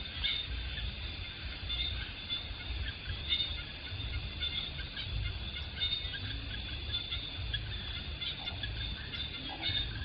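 Forest insects at night trilling in a steady high chorus, with scattered short chirps, over an uneven low rumble.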